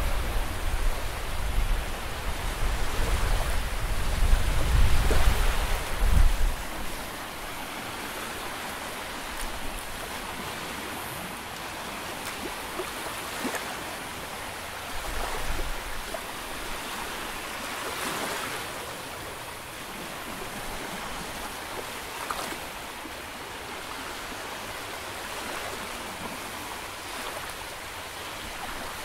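Small sea waves washing onto the shore in a steady wash, with a series of small splashes. The first six seconds are louder, with a deep rumble, before the wash settles to a lower level.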